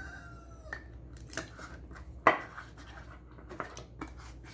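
Packaged food and containers being handled in a kitchen cupboard: a few light knocks and clatters, with one sharper knock a little past halfway. A rooster's crow trails off in the first moment.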